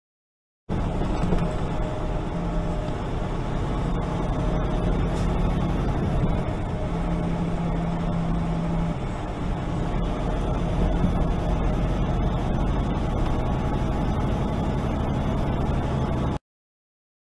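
Steady cab drone of a loaded semi truck cruising at highway speed: engine hum under tyre and road noise. It cuts in abruptly about a second in and cuts off abruptly near the end.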